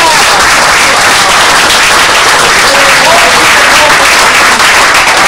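Audience applauding loudly.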